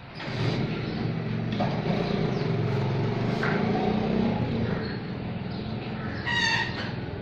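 A motor vehicle's engine running close by, coming in loud just after the start and holding steady, with a short harsh high call about six seconds in.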